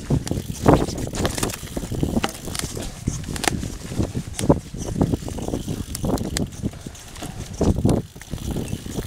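Mountain bike riding down a leaf-covered dirt singletrack: tyres rolling over dry leaves and dirt, with the bike rattling and knocking irregularly over the bumps.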